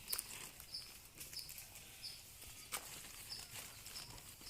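A small creature's short, high chirp, repeated evenly about once every two-thirds of a second, with a few faint clicks and rustles.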